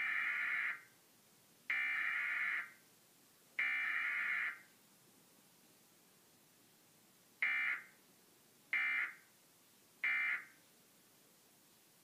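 Emergency Alert System SAME digital data tones of a Required Weekly Test, heard through a television speaker: three bursts of about a second each (the header), then three short bursts about a second and a half apart (the end-of-message code).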